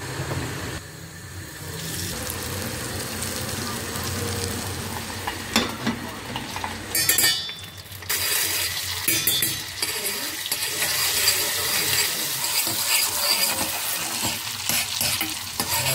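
Butter sizzling and frying in a small stainless steel pot, first with red pepper powder, then with salça paste stirred by a metal spoon. A few quick clinks of spoon on pot come about halfway through, while the sizzle briefly dips.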